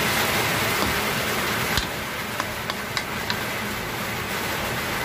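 Sautéed kangkong and pork sizzling steadily in a hot pan, with a few light clicks of a utensil against the pan partway through.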